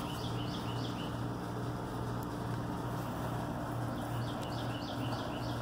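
A bird calling a quick run of short high notes twice, once near the start and again about four seconds in, over a steady low hum.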